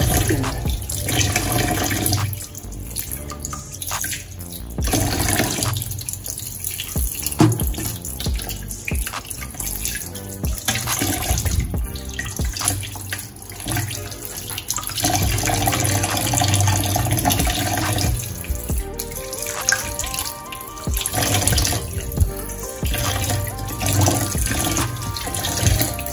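Kitchen tap running into a stainless steel bowl in a steel sink, splashing, while raw chicken pieces are rinsed and rubbed by hand in the water.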